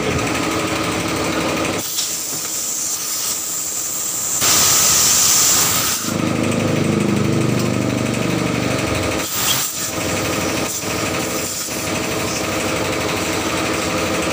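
Air compressor running steadily, feeding compressed air through a hose into a tractor tyre's valve. A loud hiss of air comes from about four and a half to six seconds in, and a few short knocks follow near the end.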